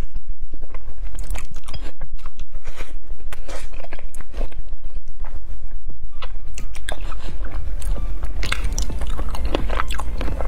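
Close-miked chewing of braised chicken feet in chili sauce: wet crunching and smacking with many sharp clicks, which come thicker near the end.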